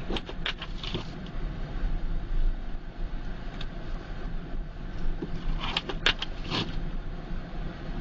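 A car being driven on snowy streets, heard from inside: a steady low rumble of engine and road, with two short runs of clicks and scrapes, about a second in and again around six seconds in.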